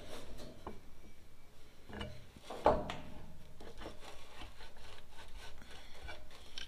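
Rubbing, scraping and light knocking as an air-conditioning compressor and its rubber hoses are handled and worked into place on a truck engine, with one louder knock a little under three seconds in.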